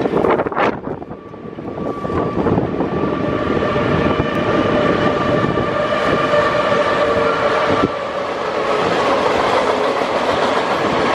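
A freight train hauled by a China Railway HXD2 electric locomotive passing close by. The rumble builds as it approaches and then holds steady as the container wagons roll past, with wheels clattering on the rails and a steady high whine over it.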